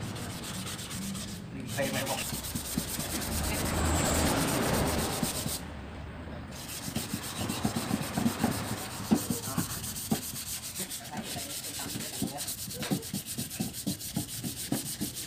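Hand sanding of a stripped Kawasaki Ninja motorcycle fuel tank: a sanding pad scraping back and forth over the steel to take off burnt paint and putty residue. In the second half it turns into quick short strokes, about three a second.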